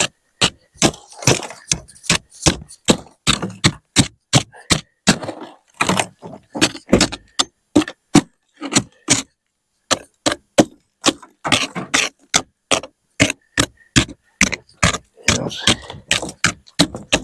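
Rubber-tipped back end of a broom handle knocking repeatedly at ice on a pickup truck's body to break it off, in sharp taps about two to three a second with a lull of a couple of seconds midway.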